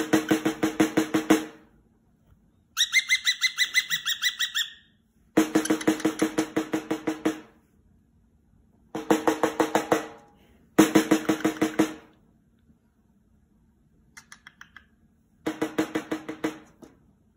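Snare drum tapped in quick rolls of about six strokes a second, in about six short bursts with pauses between. One burst also carries a higher ringing tone.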